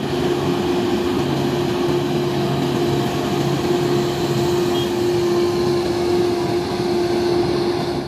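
Grove GMK6300L all-terrain crane's diesel engine running as the crane drives slowly along a road: a steady drone with a constant whine over it.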